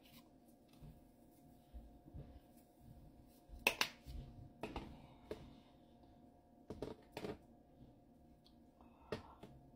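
Small plastic seasoning shaker handled at close range: a handful of sharp clicks and light taps as its cap is worked and the bottle is shaken over popcorn.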